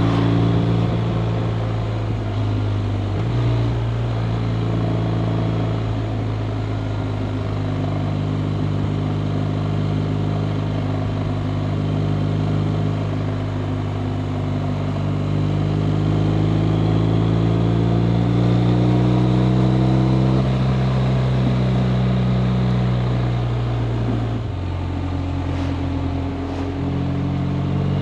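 BMW R 1250 RT's boxer twin engine running under way, heard from on the bike. The engine note slowly rises for several seconds in the middle, drops abruptly about 24 seconds in, and steps back up near the end.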